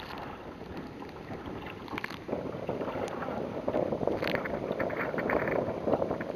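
Choppy waves slapping and splashing against a sea kayak's bow and hull in rough water, a steady rushing wash that gets louder about two seconds in, with a few sharper splashes.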